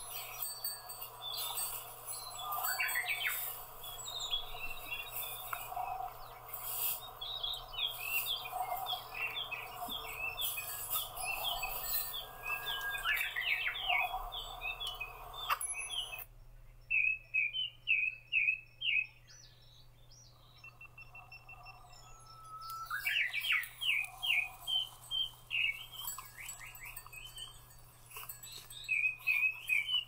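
Wild songbirds singing in repeated quick phrases of high chirping notes. A steady background hiss under them cuts off suddenly about halfway through, leaving the birdsong alone.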